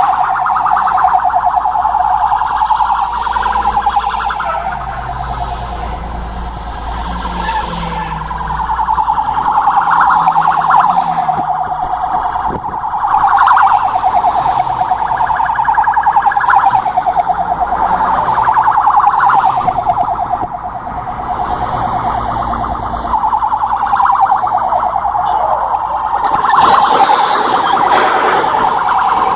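Police car's electronic siren wailing continuously, its pitch swelling up and down every few seconds with a fast warble, over a low traffic rumble that fades out about two thirds of the way through.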